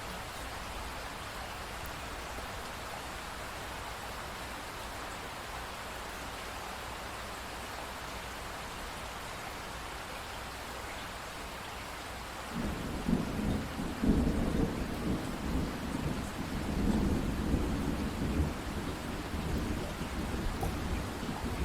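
Steady rain hissing, then about two-thirds of the way in a long, low rolling rumble of thunder begins and swells unevenly over the rain.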